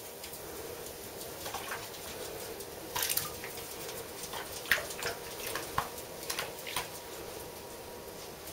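A ferret paddling and scrabbling through shallow soapy water in a bathtub, making scattered small splashes and patters, with a few sharper ones about the middle.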